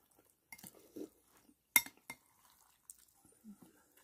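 An eating utensil clinking and scraping against a food tray, with a few short sharp clinks. The loudest comes a little under two seconds in.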